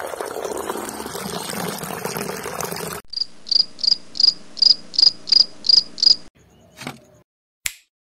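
A steady rushing noise that cuts off abruptly, followed by cricket chirping: about nine short high chirps in an even rhythm of about three a second. Two short clicks come near the end.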